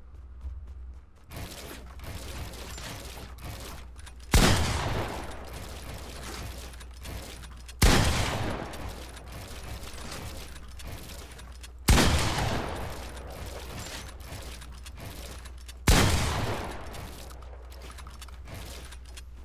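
Four loud sudden blasts about four seconds apart, each dying away over a second or two, over a steady low hum.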